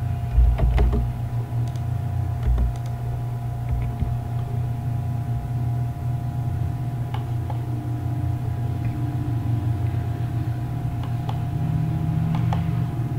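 Steady low electrical hum with a couple of thin whining tones, broken by a few scattered soft clicks of a computer mouse and two low thumps near the start.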